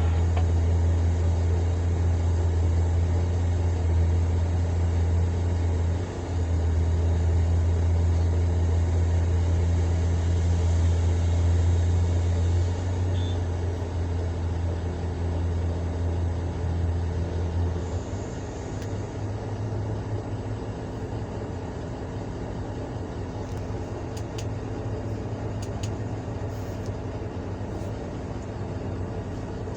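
Large hydraulic excavator's diesel engine running with a steady deep drone; about eighteen seconds in it becomes quieter.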